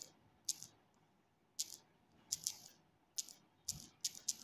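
Key taps on a smartphone's on-screen keyboard: short, sharp ticks, one per key press, spaced irregularly and coming quicker near the end.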